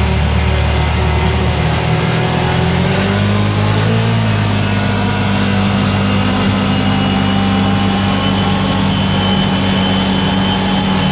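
2012 Can-Am Commander 800's V-twin engine running as the machine drives along; the engine's pitch rises between about two and four seconds in, then holds steady.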